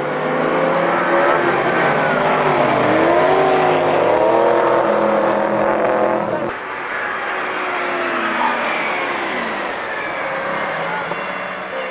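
Corvette V8 engines running hard on a race circuit as the cars pass, revving up and down through the gears. The sound drops abruptly about six and a half seconds in, leaving a more distant car revving.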